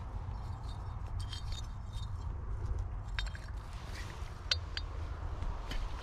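Pieces of broken glass and pottery clinking and scraping against each other as dump-site soil is dug through: a scatter of small, light clinks with brief ringing, the sharpest about four and a half seconds in, over a low steady rumble.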